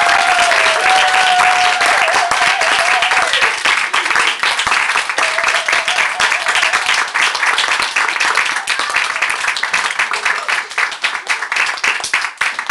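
Small audience applauding, with a couple of long held cheers in the first few seconds; the clapping thins out and dies away near the end.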